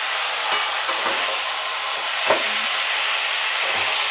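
Diced kohlrabi, tomatoes and green peas sizzling as they fry in mustard oil in a steel kadai, stirred with a metal spatula. The spatula scrapes and knocks against the pan a few times, loudest a little over two seconds in.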